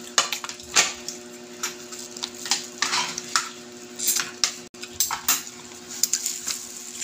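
Close-up eating sounds: lip smacks, sucking and chewing as chicken curry is eaten off the bone, with many short sharp clicks and smacks and a couple of longer slurps about three and four seconds in.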